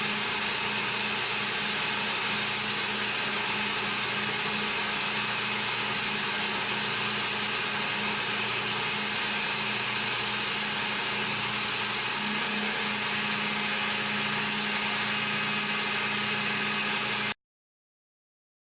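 CNC milling machine running steadily during a machining pass: a constant hum with a loud even hiss over it. It cuts off abruptly a second or so before the end.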